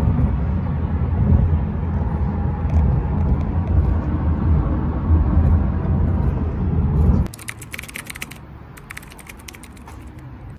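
Road and engine rumble inside a moving car's cabin, a steady low drone that cuts off suddenly about seven seconds in. A quieter stretch follows with a run of light clicks and taps.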